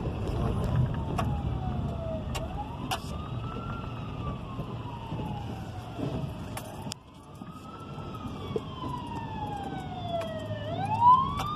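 Emergency-vehicle siren in a slow wail, rising and falling about every four seconds, with a steady vehicle rumble underneath.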